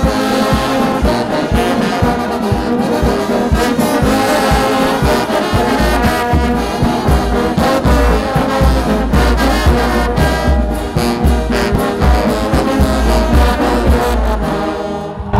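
Brass band playing, trumpets and trombones over a steady beat, cutting off abruptly just before the end.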